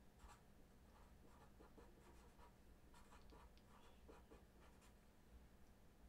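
Faint scratching of a felt-tip marker on paper: a series of short, irregular strokes as words are written out by hand.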